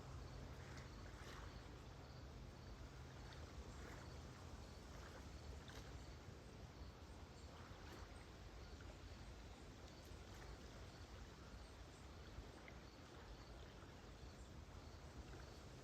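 Near silence: faint, soft lapping of calm Lake Huron waves, with a cricket chirping faintly and evenly, about two to three chirps a second.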